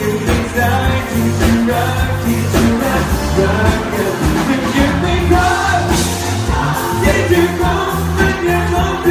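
Live pop band music with a lead vocal singing over a steady bass line and beat.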